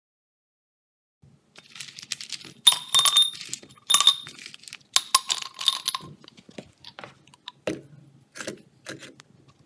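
Chunks of scrap brass clinking and ringing against each other and a steel-pipe crucible as they are dropped and packed in by hand. A run of sharp metallic clinks starts about a second and a half in, is loudest around the middle, and thins out toward the end.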